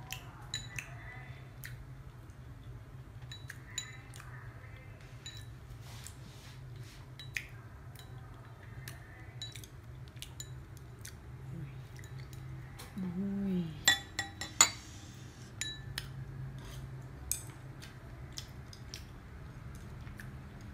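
Chopsticks clicking and scraping against a ceramic bowl while eating, as scattered sharp clinks over a steady low hum. A brief hum of voice comes about 13 seconds in, followed by the loudest run of clicks.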